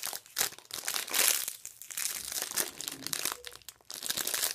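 Clear plastic bag crinkling in irregular bursts as the squishy toy sealed inside it is handled and turned in the hands.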